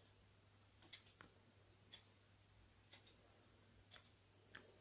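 Near silence: room tone with a steady low hum and a few faint, short ticks, three of them about a second apart.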